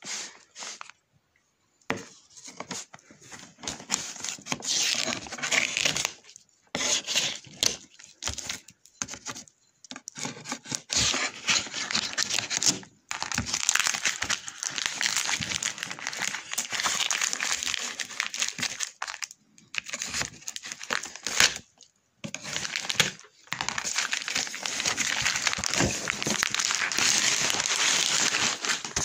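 Black plastic wrapping film and packing tape being torn and crumpled by hand as a parcel is unwrapped: irregular stretches of loud crinkling and tearing with short pauses between them.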